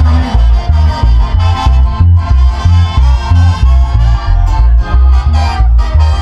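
Latin dance band music playing loudly, with a bouncing bass line on a steady beat.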